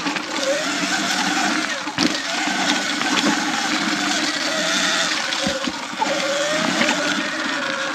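Sur Ron X electric dirt bike ridden on a dirt trail: a faint motor whine that rises and falls with the throttle, over steady tyre and rattle noise, with a few sharp knocks from bumps.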